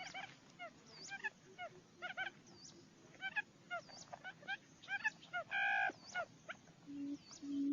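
Small birds chirping over and over, with one louder, nasal call about two-thirds of the way in. Near the end a barred buttonquail starts its call: a series of low, steady hooting booms, each about half a second long and each louder than the last.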